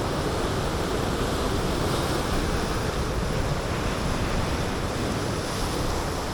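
Sea surf washing against shoreline rocks, a steady rush of water noise, with wind on the microphone.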